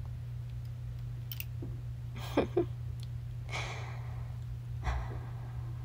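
A woman's breathy sigh close to the microphone, preceded by two quick clicks about two and a half seconds in, with a fainter breath near the end. A steady low electrical hum runs underneath.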